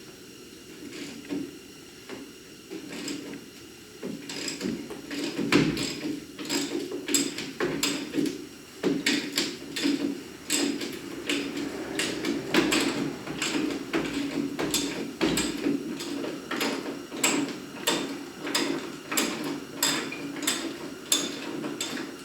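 Hand socket ratchet working a 5/8 bolt on a truck bumper mount, its pawl clicking in quick rasping strokes about twice a second, getting going about four seconds in.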